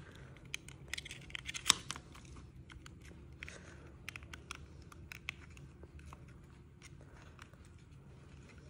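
Fingers handling and pressing the small plastic parts of a miniature oven and its clear plastic window, giving a run of small clicks and crinkles. The loudest click comes just under two seconds in, with scattered ticks after and quieter handling near the end.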